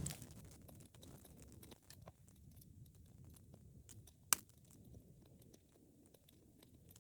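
A wood fire burning, with a soft low rumble of flames and scattered small crackles. One loud sharp pop comes about four seconds in.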